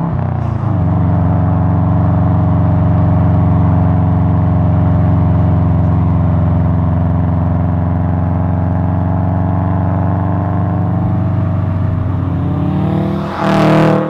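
2002 Subaru WRX wagon's turbocharged flat-four through an aftermarket Hyperflow exhaust, a steady boxer rumble at constant cruising revs. Near the end the car passes close by: a brief loud rush, with the pitch dropping as it goes past.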